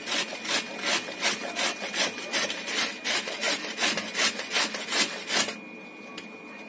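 Radish being grated on a hand grater: quick rasping strokes, about three a second, stopping about a second before the end.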